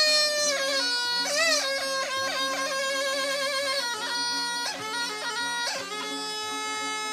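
A sipsi, the small single-reed Turkish folk pipe, plays a reedy, buzzing Teke folk melody. It holds notes and ornaments them with quick trills, and it changes note about 1, 4 and 6 seconds in. Long-necked lutes accompany it softly underneath.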